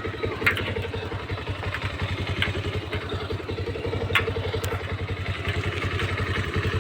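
Motorcycle engine running at low, steady revs on a rough track, with a few sharp knocks and rattles over the ride.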